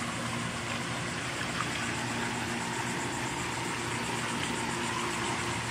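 Steady mechanical hum with running water, typical of a swimming pool's pump and the water it circulates.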